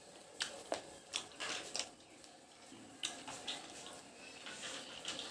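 Small plastic toys being handled: a few light, scattered clicks and taps.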